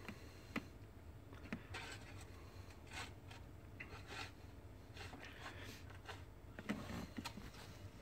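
Near-quiet car cabin: a few faint taps and rubbing sounds from handling a handheld scan tool, over a low steady hum.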